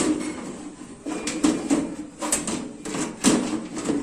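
Irregular knocks, clicks and clatter of desktop computer parts being handled and fitted back into the case during reassembly.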